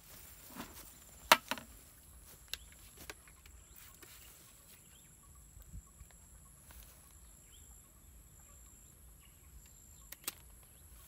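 Scattered sharp clicks and knocks from harvesting by hand: a loud one about a second in, several smaller ones, and a snip near the end as pruning shears cut a dragon fruit from its stem. A faint, steady, high insect hum runs underneath.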